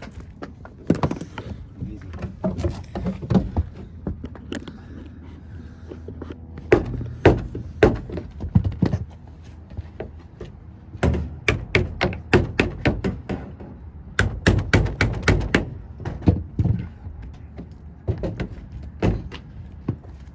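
Bursts of sharp knocks and thunks, several a second, from hands and tools working on sheet-metal air-conditioning ductwork. The loudest clusters fall in the middle stretch.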